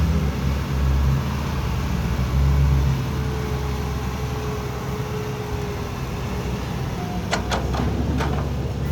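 Heavy diesel earthmoving machinery running steadily with a low hum and a faint steady whine. About three quarters of the way through, a quick cluster of three or four sharp knocks.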